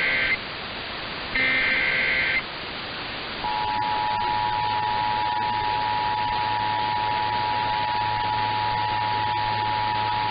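Emergency Alert System tones: the last two bursts of the SAME digital header, harsh screeching data about a second each, then after a one-second gap the two-tone EAS attention signal. The attention signal is a steady, unwavering dual tone that starts about three and a half seconds in and holds to the end.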